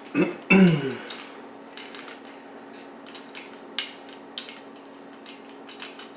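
Scattered light clicks and taps of toilet tank parts being handled while the flush handle is fitted. A short, low, falling sound, like a murmur, comes about half a second in, over a steady low hum.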